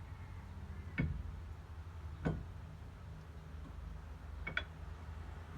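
Sharp clicks of metal parts and tools being handled while a brake caliper is refitted: one about a second in, another a second later, and a quick double click near the end, over a steady low hum.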